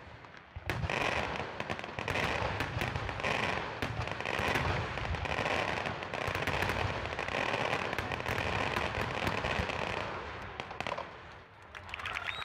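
Fireworks display: a dense barrage of aerial shells bursting and crackling in quick succession. It starts about a second in and dies away near the end.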